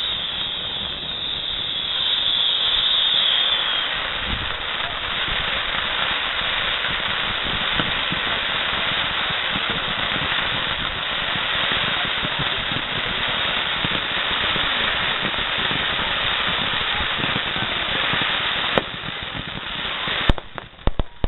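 Fireworks going off in a dense, continuous crackle with a high whistle over the first few seconds. About nineteen seconds in the crackle stops suddenly, and a few separate sharp bangs follow near the end.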